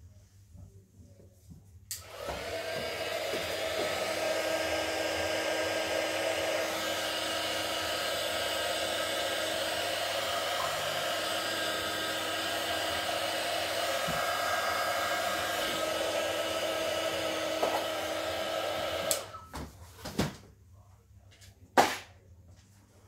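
Handheld heat tool blowing steadily over wet acrylic pour paint, clicked on about two seconds in and off after about seventeen seconds; the heat is drawing cells up through the paint. A few sharp knocks follow near the end.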